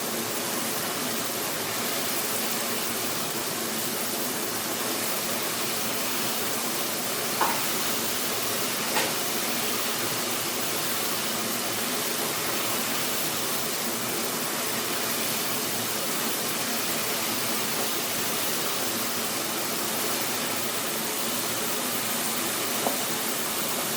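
Water boiling: a steady rush of bubbling, with a few brief louder pops.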